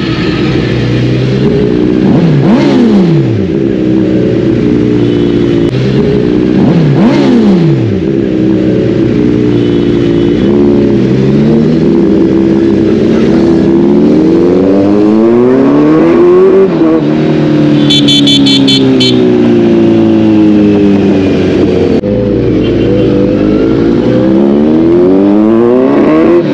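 Sport motorcycle engine heard from the rider's seat, revving up and down as it rolls through slow city traffic, with two quick falling swoops of revs in the first several seconds. A rapid high pulsing beep sounds briefly about two-thirds of the way in.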